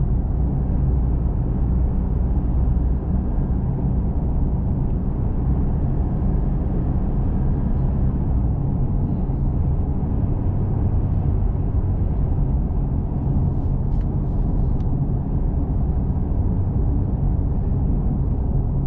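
Steady road and engine rumble heard inside a moving car's cabin at cruising speed.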